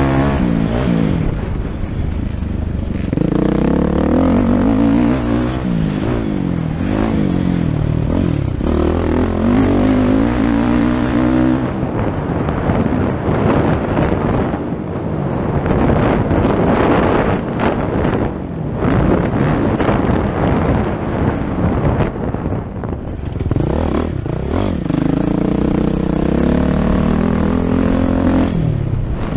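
Motocross bike's engine revving up and down through the gears, heard close on the bike. For a stretch in the middle the engine is buried under a steady rushing noise and repeated knocks, then it comes back revving near the end.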